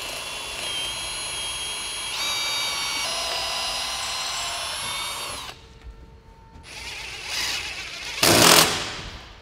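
Cordless power drill driving a screw through the door's extruded head track into a paralam header. The motor runs steadily, picks up speed about two seconds in, and stops about halfway through. A short, loud rasping burst follows near the end.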